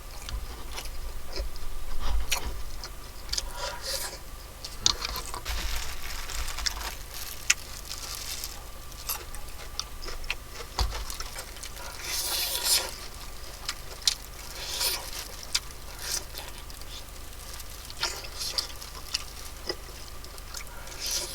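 Close-up eating sounds of fried chicken: crispy coating crunching and chewing with wet mouth noises, in short irregular bursts.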